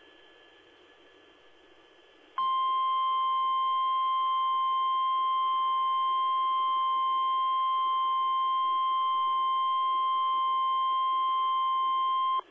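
Faint radio hiss, then about two and a half seconds in the NOAA Weather Radio 1050 Hz warning alarm tone comes on: one loud, steady beep held for about ten seconds before it cuts off. The tone signals that a warning message is about to be broadcast.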